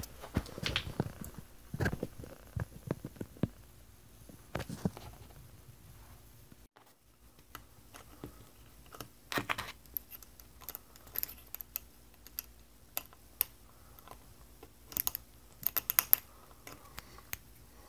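A hex key clicking and scraping in the small hex set screws of a metal towel bar's base as they are tightened, in scattered small clicks and short scrapes.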